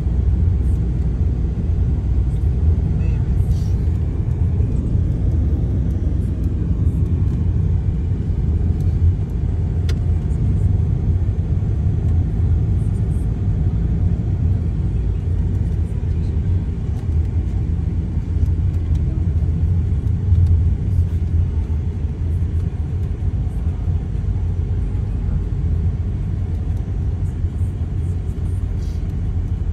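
Inside a moving car's cabin: a steady low rumble of engine and tyres on the road.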